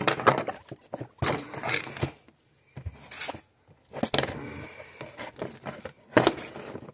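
Cardboard toy box being turned over and worked open by hand: irregular knocks, taps and scraping rustles of cardboard, with a short lull in the middle.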